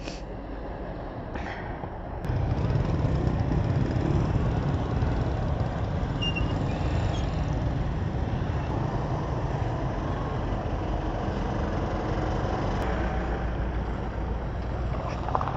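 Motorcycle engine running with a low rumble as the bike rides off, getting clearly louder about two seconds in and then holding steady.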